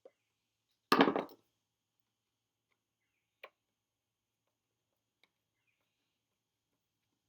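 A single sharp knock with a short rattling tail about a second in, then two faint clicks a few seconds later, from parts and tools being handled while the hoist housing is put back together.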